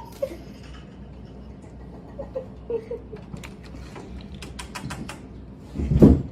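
Animals scuffling: a few short squeaks, then a quick run of sharp clicks and taps, and one loud low thump near the end.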